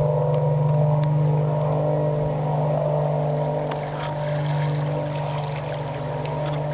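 Blimp's engines and propellers running steadily: a deep, even hum with overtones.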